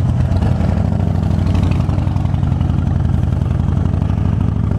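Harley-Davidson Fat Bob's V-twin engine running steadily, its low firing pulses even throughout.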